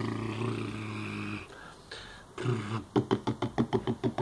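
A man's voice imitating a vehicle for a toy police van: a long, low, engine-like growl held for about a second and a half, then, after a pause, a rapid string of short voiced beats, about seven a second, toward the end.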